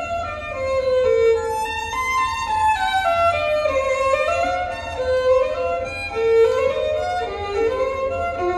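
Solo violin playing a flowing melody, reproduced from a vinyl record on a high-end turntable system through large horn loudspeakers, with a steady low hum underneath.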